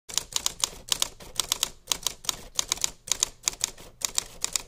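Typewriter sound effect: manual typewriter keys clacking in quick, uneven succession, several strokes a second.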